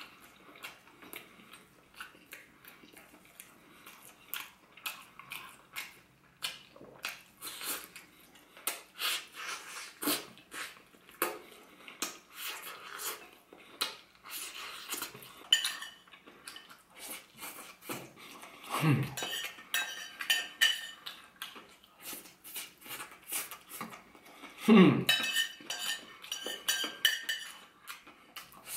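Close-miked eating sounds: chewing and mouth smacks on chicken, with three low, falling hums. Near the end, a fork clinks and scrapes on a plate.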